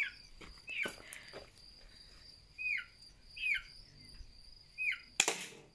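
A single sharp snap of a spring-powered airsoft pistol being fired, about five seconds in. Before it, a bird gives short downward-hooked chirps about once a second over a steady high trill of crickets.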